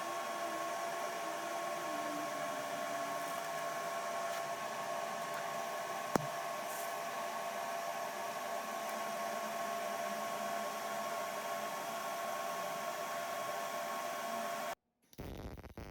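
Steady hiss with a constant hum from a running machine, unchanging throughout, with one sharp click about six seconds in; it cuts off abruptly near the end.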